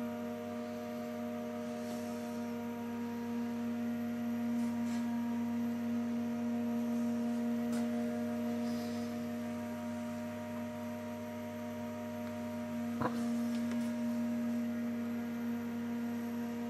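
A steady hum: one strong low tone with fainter higher tones above it, holding level, and a single short click about thirteen seconds in.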